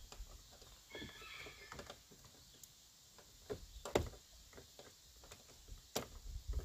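Faint clicks and light knocks of hard plastic and metal as hands fit the interior door handle into a pickup's door panel, with two sharper clicks about four and six seconds in.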